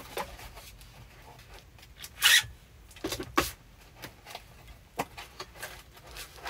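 Packing noises as a cardboard shipping box is handled: scattered light rustles and knocks, with two short louder scraping rustles about two and three and a half seconds in.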